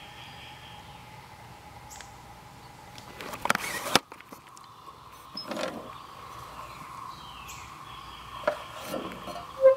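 Outdoor background with a steady hum, and a few short rustling knocks and steps as the camera is handled and moved, the loudest a sharp knock near the end.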